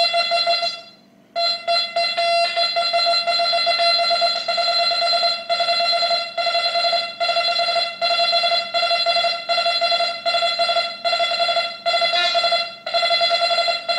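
Nokta Makro Impact metal detector in DI3 mode giving its target tone over three silver dimes: one steady, buzzy electronic tone at a single pitch, with a short break about a second in and brief dips as the coil sweeps back and forth. The tone recovers almost at once between coins, which shows the detector's very fast recovery speed.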